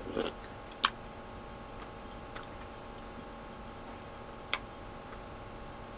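Eating sounds from a spoonful of broth with Maultaschen: a short slurp from the spoon right at the start, then a few sharp clicks, the loudest just under a second in, over a faint steady hum.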